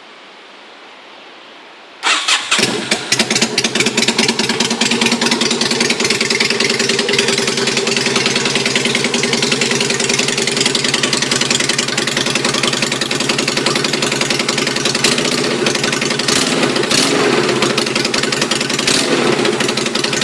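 Yamaha Virago 250's air-cooled V-twin firing up about two seconds in on its first start after a rebuild, through a custom stainless exhaust, then running at a steady idle with its pitch wavering a little near the end.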